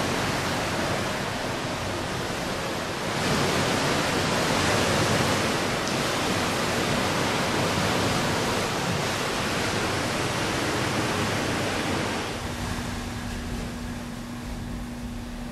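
Steady rushing noise of wind and ocean surf. It swells about three seconds in and eases about twelve seconds in, when a faint steady hum comes in.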